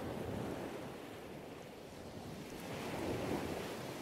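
Indoor shopping mall ambience: a steady wash of distant crowd hubbub and air noise, with no distinct voices.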